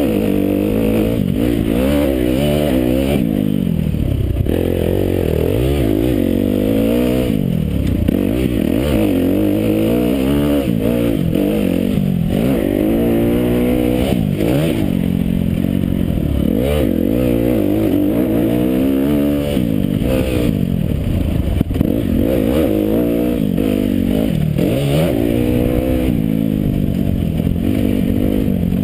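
Motocross bike engine heard from a rear-mounted camera, revving up and dropping back over and over as the rider accelerates, shifts and rolls off around the track. The sound is muffled, with little above the low and middle range.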